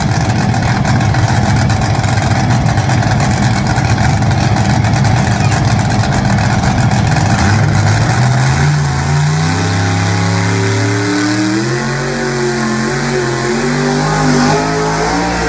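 Pulling truck's engine at full throttle under load, a loud, rough, dense sound; about eight seconds in it eases off, and the revs then rise and fall repeatedly.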